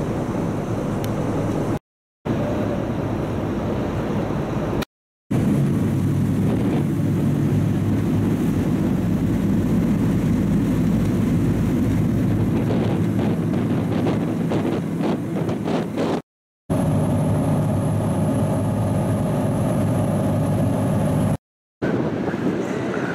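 River ferry's engines running with a steady low drone, mixed with wind and water noise on board, growing louder about five seconds in as the boat gets under way. A thin high whine joins in later, and the sound drops out completely for a moment four times.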